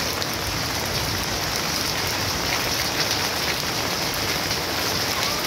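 Steady rain falling and splashing onto puddled ground and foliage, an even unbroken patter.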